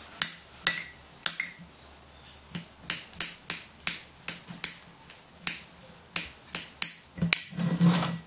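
Metal spoon clinking and tapping against a tin can and a ceramic bowl as wet cat food is spooned out: a run of sharp, irregular clicks, several a second, with a longer, louder noise near the end.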